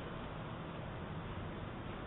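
Steady hiss of outdoor background noise picked up by a Ring doorbell camera's microphone.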